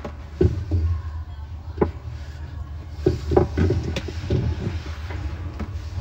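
Plastic agitator of a General Electric top-load washer being turned by hand: a few scattered knocks and rubbing sounds over a steady low hum.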